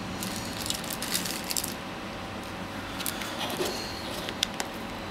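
Light clicks and clinks of tiny phone screws and a small driver being handled on a work surface: a quick cluster about a second in, then a few single ticks.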